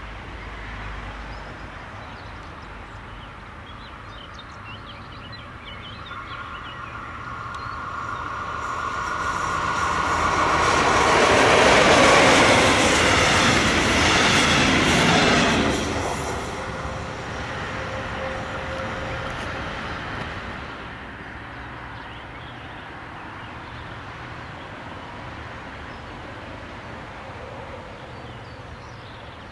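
DB class 143 electric locomotive hauling a train of double-deck passenger coaches passes at speed. A steady high ring comes ahead of it as it approaches. The noise builds to a loud rush and clatter of wheels as the coaches go by, then drops off suddenly and fades as the train recedes.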